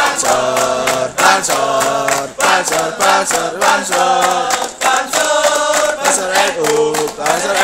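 A group of Banser NU trainees singing a march-like chant in unison, the melody moving in held steps, with sharp percussive hits, claps or stamps, running through it.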